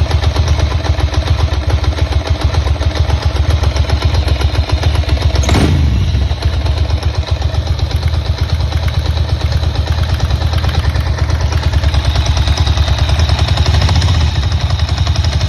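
Ducati 900SS air-cooled L-twin engine running steadily at idle, with one brief rise and fall in pitch about five and a half seconds in. The owner asks whether it is making an abnormal noise.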